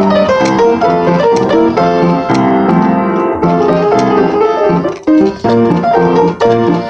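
Upright piano played in ragtime style: a busy stream of notes and chords, with a brief break about five seconds in before the playing resumes.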